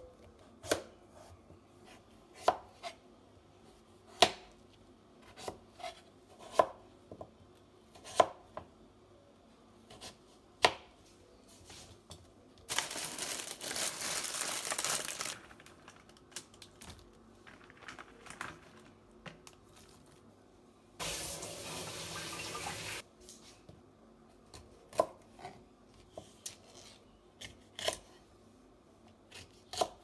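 Chef's knife slicing butternut squash, knocking sharply on a wooden cutting board every second or two. Twice in the middle, for two to three seconds each, tap water runs in a steady rush. Near the end, the knife chops green beans on the board.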